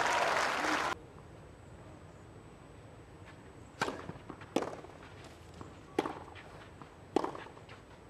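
Crowd applause that cuts off suddenly about a second in. After a quiet stretch, a tennis ball is struck by racquets in a rally: four sharp cracks roughly a second apart, with fainter ball bounces and footsteps on the clay between.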